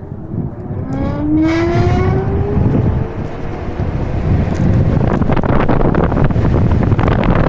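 Segway GT2 electric scooter's hub motors whining, the whine rising in pitch as the scooter accelerates. Wind noise on the microphone builds with speed and is the loudest sound in the second half.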